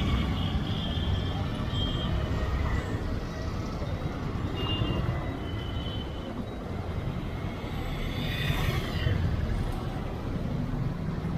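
Motorcycle riding through city traffic: a steady low engine and road rumble, with a few short high tones from the traffic and a brief hiss about eight and a half seconds in.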